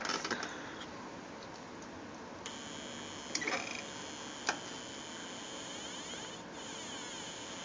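Homemade breadboard synthesizer, a Schmitt-trigger NAND gate oscillator driving a 386 amplifier and small speaker, giving a thin, high buzzing tone over a steady hiss. The tone comes in about two and a half seconds in, with a couple of sharp clicks. The output is full of noise for lack of a filtering capacitor.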